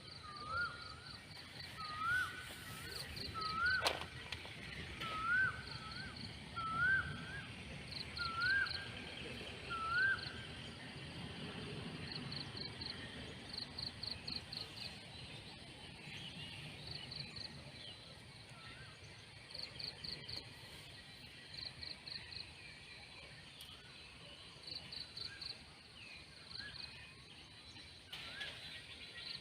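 Outdoor nature ambience: a bird repeats a short rising call about every second and a half, then stops about ten seconds in. Groups of fast, high insect chirps carry on throughout, and a single sharp click comes about four seconds in.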